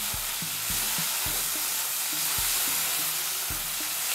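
Onion, crushed ginger-garlic and tomato sizzling steadily in hot oil in an aluminium kadai, with a metal spatula knocking and scraping against the pan about twice a second as it stirs them.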